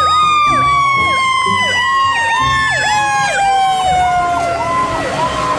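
Fire truck sirens wailing. One long siren tone slides slowly down in pitch while a second siren swoops down and back up over and over in quick whoops.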